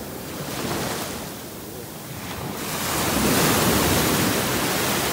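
Small sea waves breaking and washing in at the shoreline, with a larger wash building up about two and a half seconds in.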